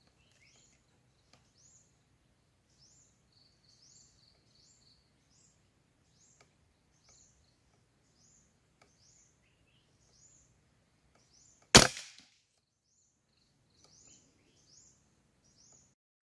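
A single sharp rifle shot about twelve seconds in, the loudest thing by far, over small birds chirping repeatedly in short rising notes.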